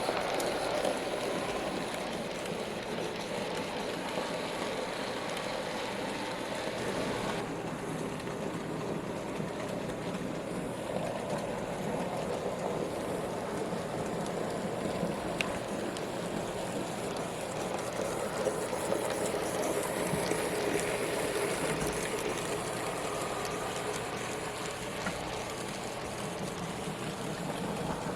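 N gauge model trains running on the layout: a steady whir of small locomotive motors and wheels rolling on the track, changing in character about 7 seconds in.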